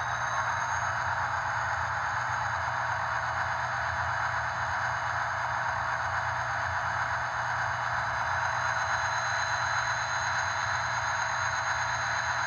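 ESU LokSound V5 sound decoder in a Kato HO-scale Amtrak F40PH playing its diesel prime-mover sound through the model's small speaker. The engine runs steadily at idle after start-up, with a thin high whine above the rumble.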